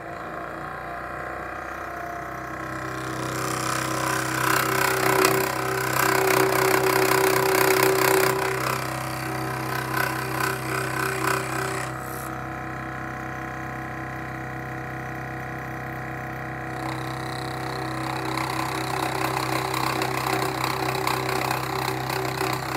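Scroll saw running with a steady motor hum as its blade cuts notches into a wooden block. The rasp of the blade in the wood grows louder from about 3 seconds in, eases off about 12 seconds in, then picks up again from about 17 seconds.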